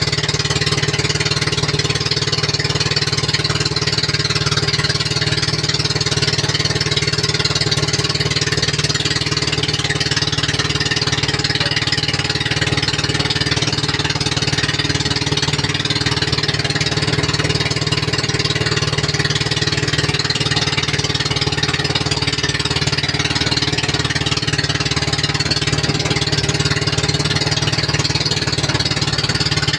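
Bangka outrigger boat's engine running steadily under way at an unchanging pitch.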